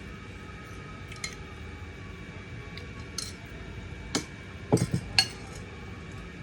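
Kitchen utensils and dishes clinking and knocking: a few scattered light clinks, then a heavier knock and two sharp clinks close together between about four and five seconds in, over a steady low hum.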